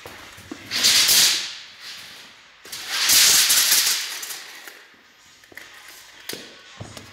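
Two loud bursts of rustling, hissing noise, the first about a second long and the second about a second and a half long, starting about three seconds in, with a few faint clicks afterwards.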